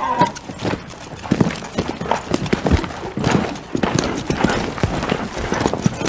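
A young stallion's hoofbeats, quick and uneven, as he moves off wearing a saddle for the first time.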